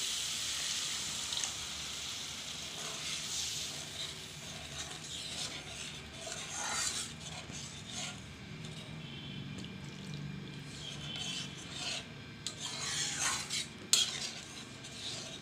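Water poured onto fried masala paste in a hot metal kadai sizzles, then a spatula stirs and scrapes the thinning gravy around the pan in repeated strokes. A sharp knock of the spatula on the pan comes near the end.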